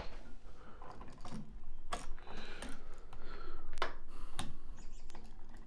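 Hand-tool work on a light switch's wiring: scattered sharp clicks and light scraping as the wire and switch are handled, with the loudest clicks about two and four seconds in.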